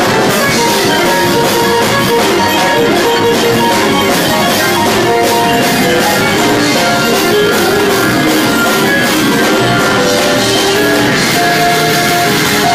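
Live band playing instrumental music: electric bass guitar, drum kit with cymbals, and keyboards.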